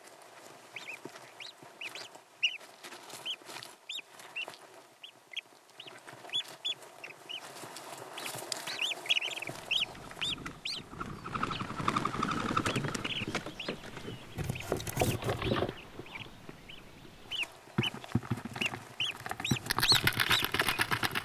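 Newly hatched common goldeneye ducklings peeping: many short, high cheeps, one after another. From about halfway through, a rustling of down and eggshell joins in, growing louder near the end.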